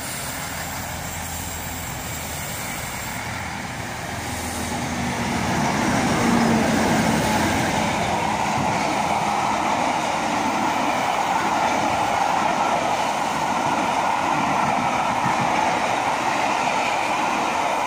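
A pair of Class 50 diesel locomotives passes with their engines humming, followed by a long train of Mk1 coaches rolling by through the station. About five seconds in, the rumble and clatter of the coach wheels on the rails grows louder and then holds steady.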